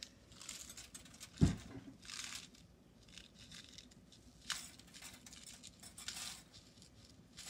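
Small plastic bag crinkling as purple craft crystals are shaken out and patter into a plastic sun catcher mold on aluminum foil. A single thump about one and a half seconds in, and a sharp click partway through.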